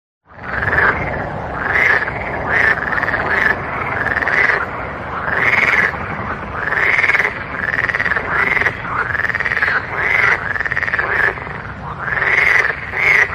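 Frogs croaking in a dense chorus that starts abruptly just after the beginning: overlapping calls about once a second, each rising and then falling in pitch, over a steady low rumbling background.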